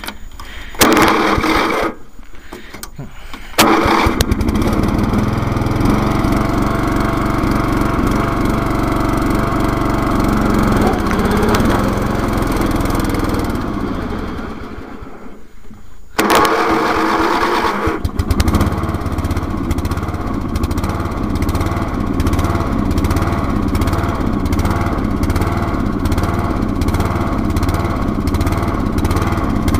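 Riding lawn mower engine started on choke, running steadily, then dying away about halfway through, a stall the owner puts down to dirt in the carburetor. It starts again suddenly and runs on steadily.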